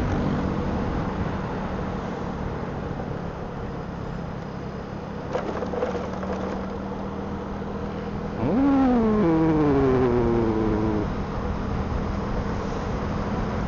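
Motorcycle riding along a city street: steady engine and road noise. About eight seconds in, an engine revs up sharply and loudly, then its pitch falls away in steps over the next two or three seconds.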